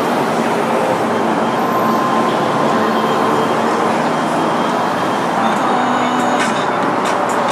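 Steady noise of heavy city street traffic. A few faint, sharp clicks come in over it in the last couple of seconds.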